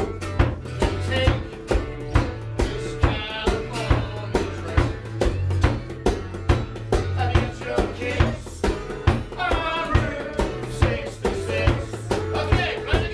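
Live band playing, with the drum kit heard close up from the drummer's seat, keeping a steady beat of about two hits a second under guitar and a singing voice.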